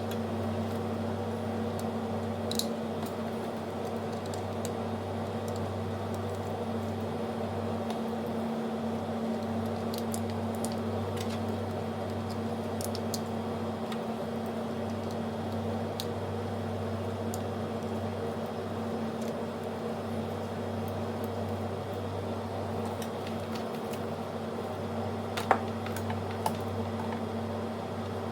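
Steady mechanical hum, like a motor or fan, with a few small clicks and taps scattered through it, the sharpest near the end.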